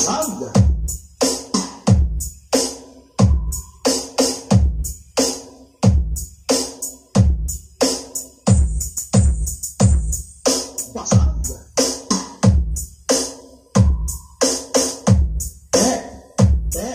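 Electronic dance music with a drum-machine beat of deep kick drums that drop in pitch, played loud through a DIY 737 power amplifier as a sound check.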